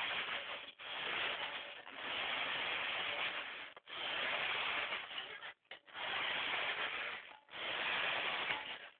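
Toy RC rock crawler's electric motor and gears whirring with a hissing sound in stretches of one to two seconds, cutting out briefly between them as the throttle is pulsed, its batteries running low.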